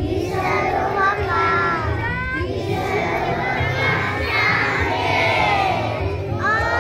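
A large group of schoolchildren chanting a morning prayer together in unison, many young voices at once.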